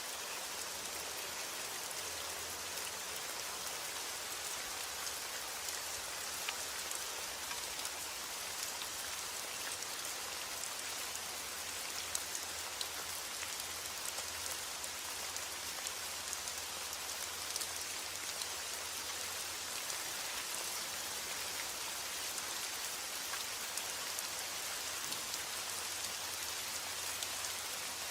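Heavy rain falling steadily: an even hiss with many scattered sharp drop ticks, and no thunder.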